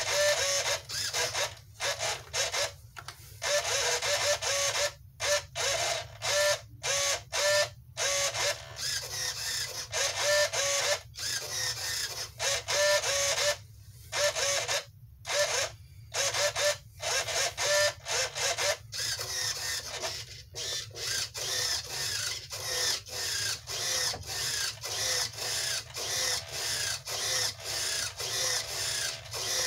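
Standard RC hobby servos in a model plane's fuselage, an Airtronics 94102 and a Tower Hobbies TS-53, whirring in quick, irregular bursts with short pauses as they are swung back and forth. Powered from a single-cell 3.7 V LiPo, they keep moving with no sign of weakness.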